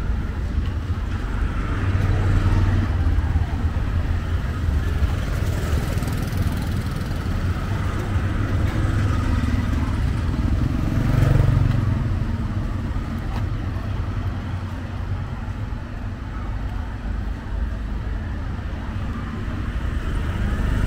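Street traffic: motor scooter and auto-rickshaw engines running, with one vehicle passing close and louder about eleven seconds in.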